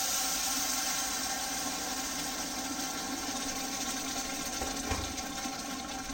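Water hitting a saucepan of rice toasted in smoking-hot olive oil, sizzling and boiling hard in a loud, steady hiss that eases slightly toward the end.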